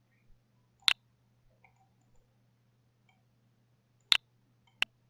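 Three sharp computer mouse clicks: one about a second in, then two close together near the end.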